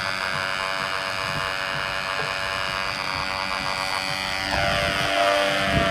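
Model airplane's propeller motor running with a steady buzzing whine. It grows louder and shifts in pitch about four and a half seconds in as it is throttled up for a hand launch.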